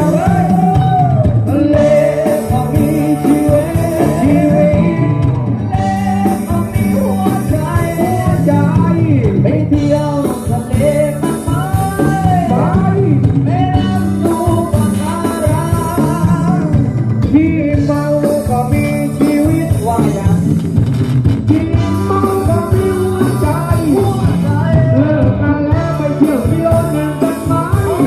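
Amplified live band playing a Thai ramwong dance song, with a singer carrying the melody over guitar and hand-drum percussion and a steady beat.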